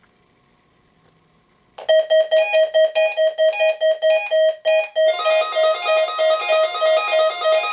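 Fire alarm signal devices sounding: a loud pulsing alarm tone, about four pulses a second, starts suddenly about two seconds in, and a second alarm at a higher pitch joins about five seconds in, pulsing along with it.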